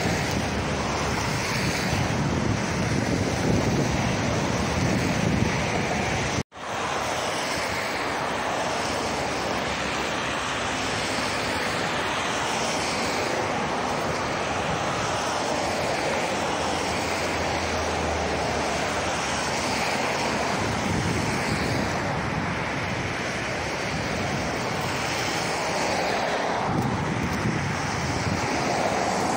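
Steady wind noise on the microphone over the distant rumble of trains running on the line. The sound cuts out for an instant about six seconds in.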